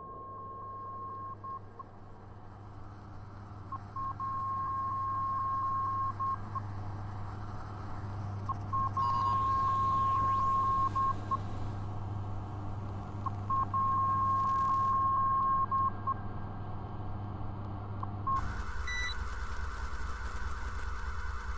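Experimental electronic drone music: a steady low hum under a high, beep-like tone that sounds in runs of about two seconds every four or five seconds. About three quarters of the way in the texture changes to a harsher, noisier drone, and the whole grows gradually louder.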